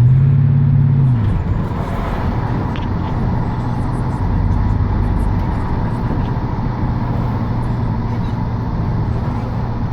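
Dodge Dakota R/T's 5.9-litre V8 engine running; its pitch drops back about a second in, then it idles steadily.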